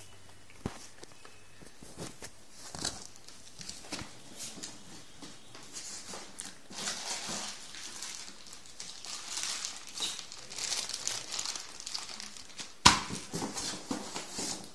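Packaging being handled during an unboxing: rustling and crinkling with scattered light clicks and knocks, and one sharp loud knock a little before the end.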